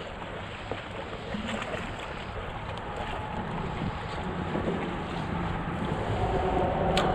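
Wind buffeting the microphone, a steady rushing noise that swells slightly toward the end, with a single sharp click about seven seconds in.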